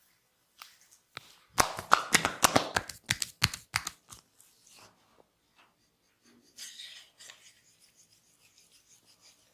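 Hands working on a body during an oil massage. A rapid run of about a dozen loud, sharp cracks and smacks lasts two to three seconds, and a short rustling hiss follows about two seconds later.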